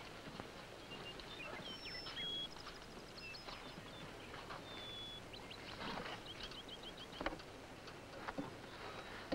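Birds chirping outdoors: short high whistled notes and quick trills of repeated notes. A single sharp knock about seven seconds in is the loudest sound.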